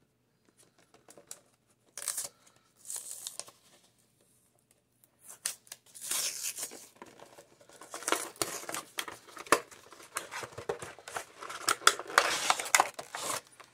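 HeroClix booster pack being torn open by hand, its packaging tearing and crinkling. A couple of short tears at first, then steady crackling and crinkling for the last several seconds.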